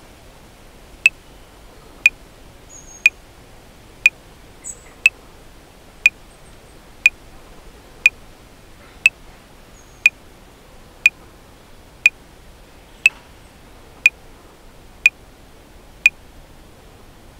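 Metronome clicking at 60 beats a minute: sixteen sharp clicks one second apart, four bars of 4/4, over a faint steady hiss of background ambience.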